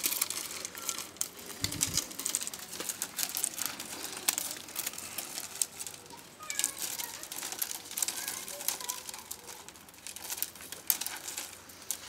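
Dried reed stalks crackling and rustling as they are bent and woven by hand into a basket, a dense run of quick, irregular clicks.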